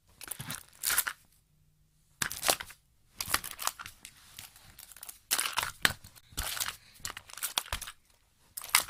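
Irregular bursts of rustling and scraping handling noise close to the microphone, several short clusters with brief quiet gaps between them, as things are fumbled with by hand.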